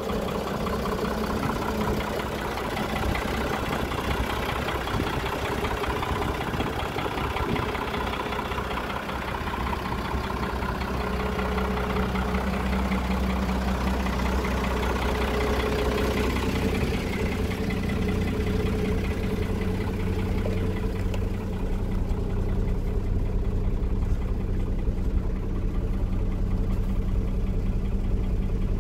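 Iveco 137.17 truck's diesel engine idling steadily. From about halfway through it sounds more muffled and bass-heavy, as heard from inside the cab.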